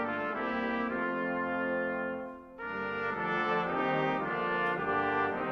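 Brass-led title music playing in held chords, breaking off briefly a little over two seconds in and then starting again.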